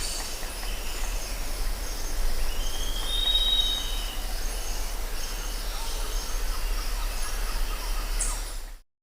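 Jungle ambience: a steady hiss of background noise with thin, high insect-like calls and a bird whistling a note that rises and then holds, about three seconds in. The sound cuts off suddenly near the end.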